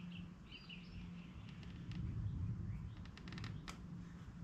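Hands working motorcycle ignition wiring, with low rustling and handling noise. About three seconds in comes a quick run of small clicks and then one sharper click as a wire connection is pushed together. Birds chirp faintly in the first second over a steady low hum.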